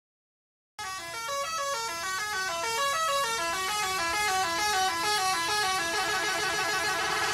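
Animated train horn sounding loudly about a second in, a run of pitched notes stepping down and up in quick succession, then cutting off abruptly.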